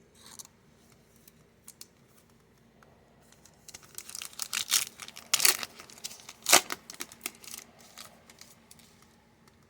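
Crinkling and tearing of trading-card pack packaging and handled cards: a few light clicks at first, then a dense run of crackles through the middle few seconds that dies down near the end.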